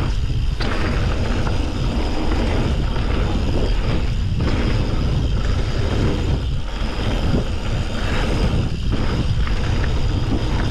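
Wind rushing over the microphone and the rumble of a mountain bike rolling fast over a rocky trail, a steady loud noise with brief dips.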